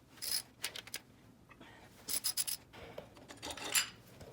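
Light metallic clinks and scrapes in three short clusters: about a quarter second in, around two seconds in, and near the end. They are small metal engine parts being handled and set down during an engine teardown.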